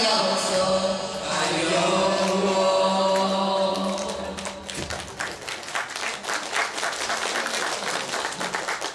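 A group of teenage students singing together into microphones, holding long notes, then audience applause starting about four and a half seconds in as the singing ends.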